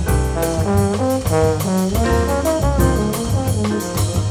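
Instrumental background music: a melody of quick pitched notes over a steady beat.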